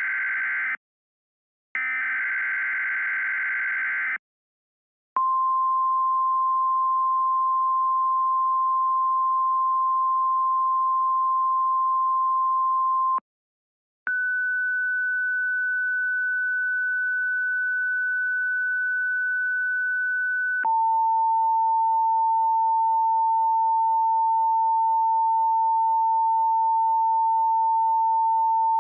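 Emergency Alert System data bursts from a mock weather-radio alert: a raspy digital burst ends just after the start, and a second burst follows about two seconds in. After a short silence come steady electronic tones: one held for about eight seconds (the weather-radio warning alarm tone), a brief break, a higher tone for about six seconds, then a lower tone that carries on.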